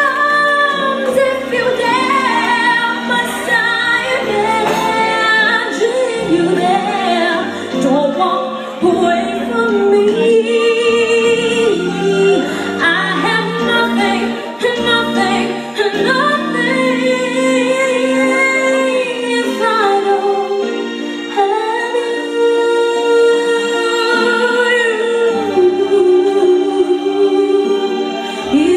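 A woman singing a song over instrumental accompaniment, long held notes with vibrato.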